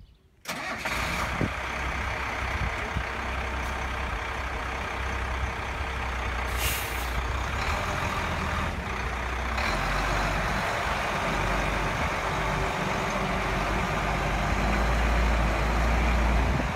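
1994 Ford L8000 floater spray truck's engine comes in suddenly about half a second in, then runs steadily with a deep low rumble and grows a little louder near the end. A short hiss of air sounds about six and a half seconds in.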